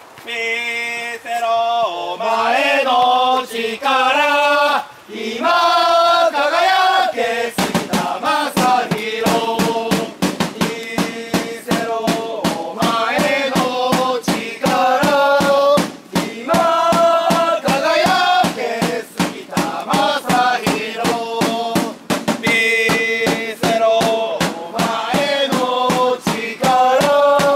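A small group of men singing a football supporters' chant. About seven seconds in, a drum joins with a steady beat of about three strikes a second.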